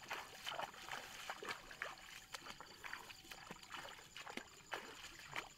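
Footsteps swishing and splashing through tall wet rice plants and shallow floodwater, an uneven run of two or three steps a second.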